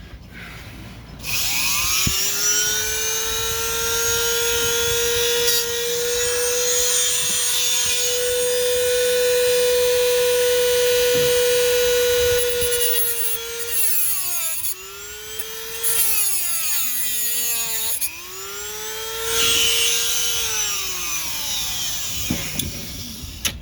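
Dremel rotary tool with a cutoff wheel cutting a new screwdriver slot into a stripped set screw: the motor spins up about a second in to a steady high whine, then its pitch sags and recovers several times as the wheel bears into the screw, and it stops near the end.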